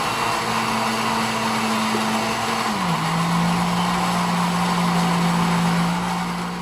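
Nikai juicer blender motor running steadily, blending a fruit and yogurt mixture. Its hum drops to a lower pitch a little under three seconds in, then the motor winds down near the end.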